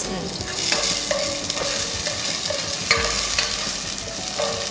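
Raisins sizzling in hot ghee in a nonstick saucepan. A spatula stirs them, scraping the pan bottom about every half second.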